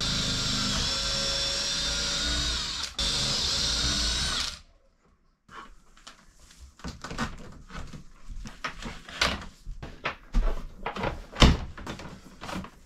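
Power drill running at a steady speed for about four and a half seconds, with a momentary break near three seconds in, boring the wire holes out through the wooden sill and deck. After a short silence come irregular rustling, scraping and light knocks as wires and plastic tubing are fed through the new holes.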